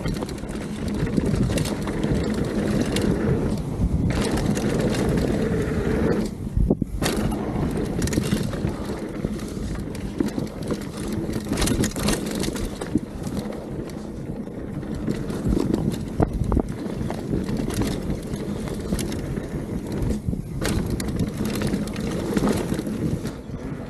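Mountain bike rolling fast down a dry dirt trail: tyres crunching over dirt and gravel, with frequent knocks and rattles from the bike over bumps. A brief lull comes about six and a half seconds in.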